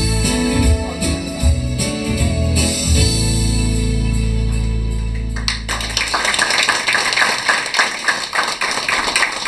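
A song's music ends on a held final chord that fades away; about halfway in, audience applause breaks out and carries on.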